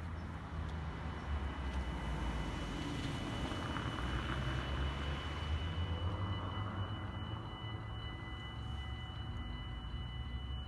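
Dutch level-crossing warning bells ringing steadily while the red lights flash, signalling an approaching train before the barriers close. A low steady rumble lies underneath.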